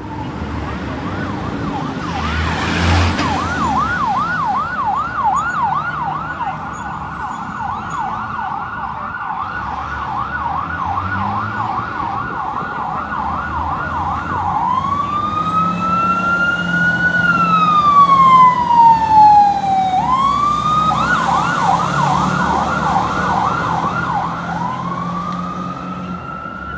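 Fire engine's electronic siren in a fast yelp for about fourteen seconds, then one slow rising and falling wail, then a yelp again, with another wail starting near the end. The truck's engine runs underneath, loudest in the middle as it passes. There is a brief loud burst about three seconds in.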